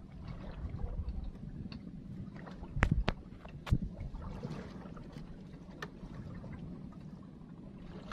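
Water slapping against the hull of a small wooden boat sitting on choppy sea, with a steady low wind rumble. A few sharp knocks come against it: two close together about three seconds in, another near four seconds and a fainter one near six.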